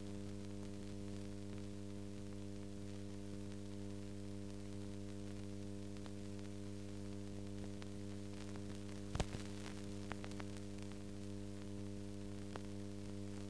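Steady electrical hum with hiss on a silent stretch of old newsreel soundtrack, with a few faint clicks about nine seconds in.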